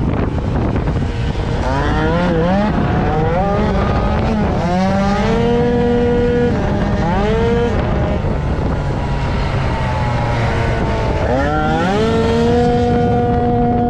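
Racing Piaggio Zip scooter engine at full throttle: its pitch climbs quickly, holds level while on the throttle, and drops back several times, over a steady rush of noise.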